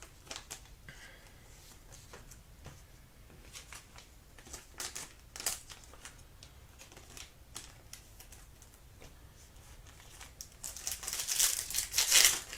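Trading cards being handled, with light scattered clicks and rustles, then a card pack's wrapper crinkling and tearing loudly from about ten seconds in as a new pack is opened.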